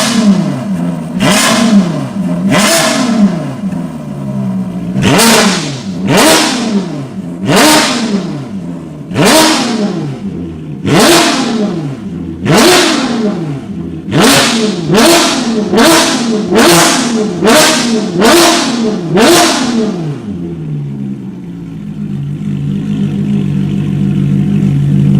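Ferrari California's V8 engine revved in a long series of short, sharp blips, each rising fast and falling back, more than a dozen in quick succession. Near the end it settles to a steady idle.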